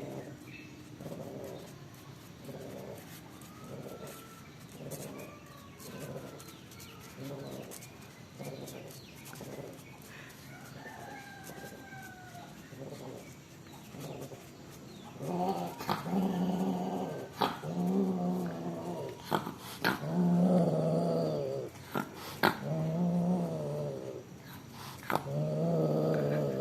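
Domestic cats caterwauling in a mating encounter: a run of short, repeated low calls, then from about halfway several long, loud, wavering yowls. A few sharp clicks fall between the yowls.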